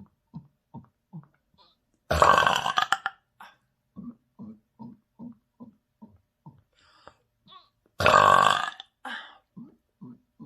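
A person gives two long, loud burps, one about two seconds in and one near eight seconds, each lasting nearly a second. Between and around them come short, low gulps of air, about two or three a second, as air is swallowed to bring the burps up.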